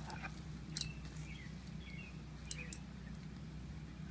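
Three light clicks of a metal screwdriver knocking against a push lawn mower's engine, one about a second in and two close together past halfway, with faint high chirps in the background.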